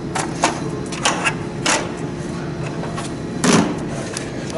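Plastic engine cover of a VW Passat TDI being worked loose and pulled off its mounts: a series of clicks and knocks as it sticks, then a louder thump about three and a half seconds in as it comes free.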